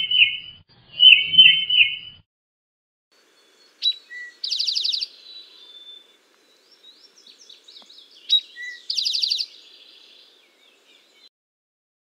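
Tufted titmouse whistling its 'peter-peter' song, two short phrases in the first two seconds. Then an Eastern towhee sings its 'drink-your-tea' song twice, about four seconds apart: a sharp high note, a lower note, then a fast trill, with faint short notes between and after.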